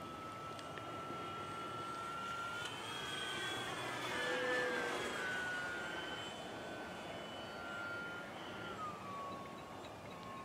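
Electric radio-control model warbird flying overhead: a steady motor-and-propeller whine that rises slightly, is loudest about halfway through, and drops in pitch as the plane passes near the end.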